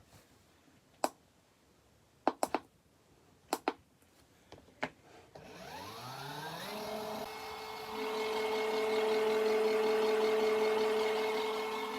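Several sharp plastic clicks, then a small portable folding washing machine's electric motor starts up about halfway through, its pitch rising as it spins up, and settles into a steady hum that grows louder.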